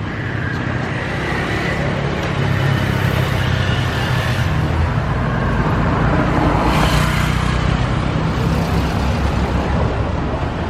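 Street traffic: motor vehicles running steadily close by, with vehicles passing about four and seven seconds in.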